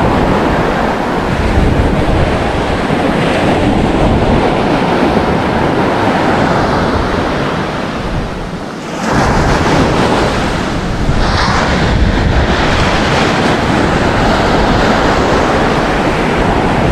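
Wind buffeting the microphone over the steady wash of surf, with a brief lull about eight and a half seconds in.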